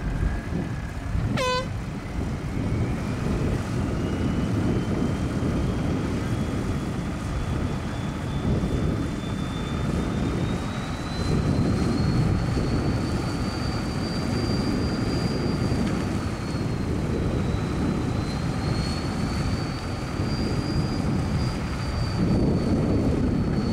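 Rock buggy's engine running hard under heavy load as it strains against a tow strap tied to a heavy loader, with tyres churning dirt. A high whine climbs slowly in pitch through the pull, and a brief high tone sounds about a second and a half in.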